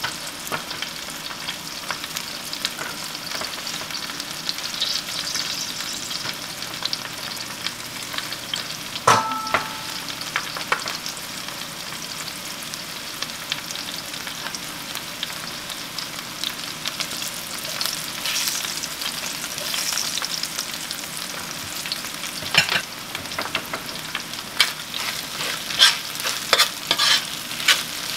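Fresh-cut corn and sliced squash sizzling steadily in butter and grease in cast-iron skillets. A single metal clink sounds about nine seconds in. In the last several seconds a metal spatula scrapes the skillet again and again as the corn is stirred.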